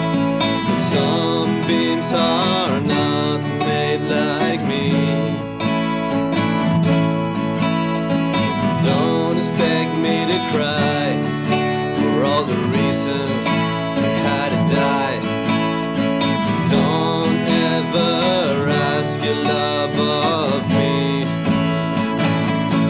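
Two acoustic guitars, a nylon-string and a steel-string, playing a song together.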